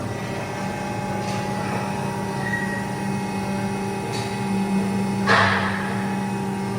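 W12-20X2200 four-roll plate bending machine running with a steady drive hum. Short metallic noises sound about a second in and about four seconds in, and a louder clank-and-hiss comes a little past five seconds.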